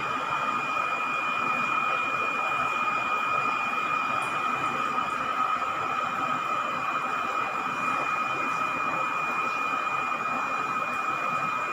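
Aquarium aeration running: a steady hiss with a constant high-pitched whine from the air pump feeding the tank's sponge filter.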